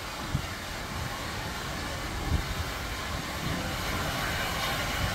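Tank steam locomotive hauling coaches at low speed: a steady rumble with occasional low thumps, growing louder as it approaches.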